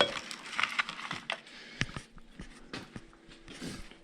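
Scattered light clicks and soft rustling of small tyre-valve parts being handled and sorted.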